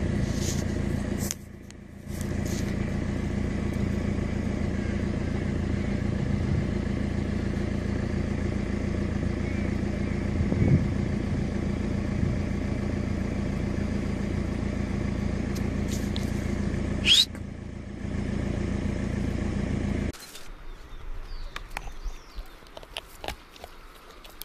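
A vehicle engine idling steadily, with two short dropouts. It stops abruptly about 20 seconds in, giving way to quieter, scattered small sounds.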